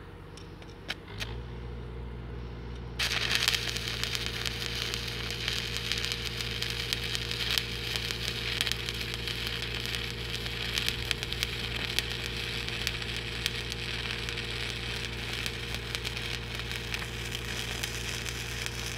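Stick welding with 3/32-inch 7018 rod: a few clicks, then a steady low hum from about a second in, and the arc strikes about three seconds in and crackles steadily.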